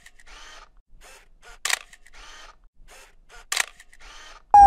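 Camera shutter clicks, one about every two seconds. A loud police siren starts wailing just before the end.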